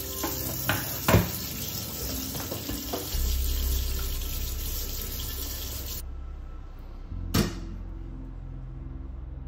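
Washing up at a kitchen sink: tap water running, with a few sharp clinks of dishes. The running water stops about six seconds in, and one more clink follows.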